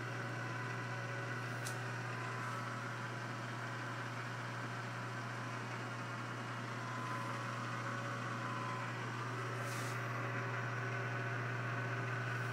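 Clausing 6315 metal lathe running under power with a steady motor hum. A brief click comes about a second and a half in, and a short hiss near the ten-second mark.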